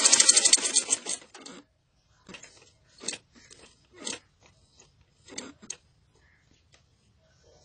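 Motor-driven sewing machine stitching fast, its needle striking in a rapid, even beat, then stopping about a second and a half in. Short rustles and clicks of the cloth being shifted and straightened under the presser foot follow.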